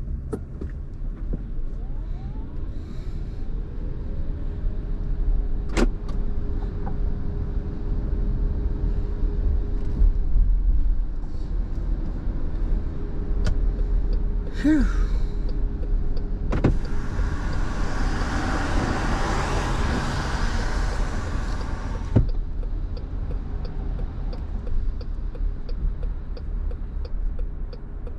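Inside a car's cabin driving on a wet road: steady engine and tyre rumble. A louder rushing hiss starts about two-thirds of the way in, lasts about five seconds, and cuts off suddenly. Near the end comes a light, even ticking about twice a second.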